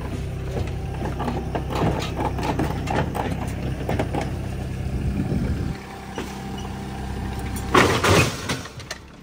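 Digger engine running with metallic clanks and scrapes as it is loaded onto a plant trailer; the engine note drops about two-thirds of the way through. A loud metal clunk near the end comes as one of the trailer's ridged support props slips down a notch under the weight.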